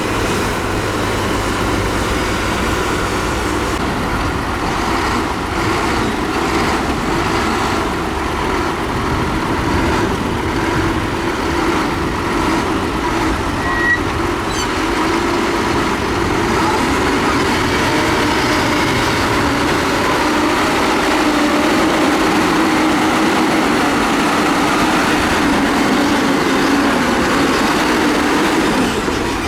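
Heavy road-construction machinery with diesel engines running hard under load, the engine pitch climbing a little in the second half.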